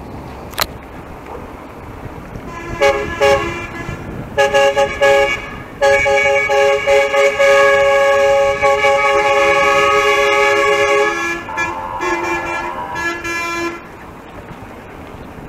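Several vehicle horns honking together in a multi-tone chord: a few short toots, then a long steady blast of about five seconds, then a second, differently pitched chord for about two seconds.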